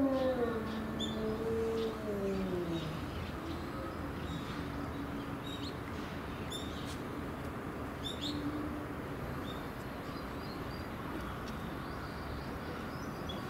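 Tibetan wolves (Canis lupus chanco) howling: two howls overlap and slide down in pitch over the first three seconds, then one long, steady, lower howl runs from about four to nine seconds in, with a short howl near the end. Small birds chirp now and then.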